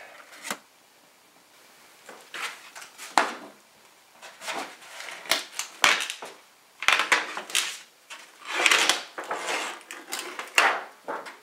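Thin galvanized sheet-metal lid of a soldered ammunition can liner being bent and peeled back by hand, crinkling and rattling in irregular bursts with a few sharp clicks.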